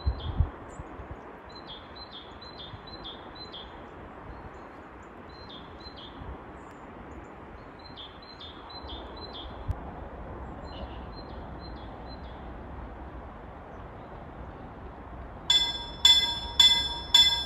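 Small birds chirping over steady background noise, then about two seconds before the end a level-crossing warning bell starts ringing, about two strokes a second and much louder than the birds: the crossing is activating for an approaching train.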